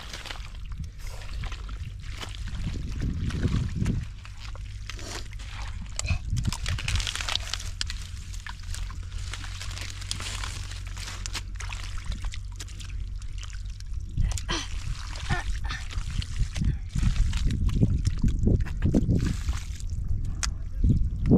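Shallow water splashing and sloshing in irregular bursts as people wade and grope through it, catching fish by hand.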